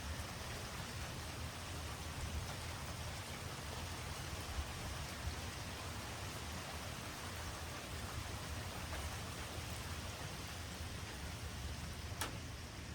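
Steady rain falling during a thunderstorm, an even hiss, with one sharp tick near the end.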